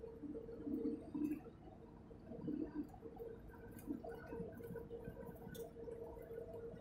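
Inside a truck cab at highway speed: steady engine and road noise with a steady mid-pitched whine, and a few faint clicks and rattles.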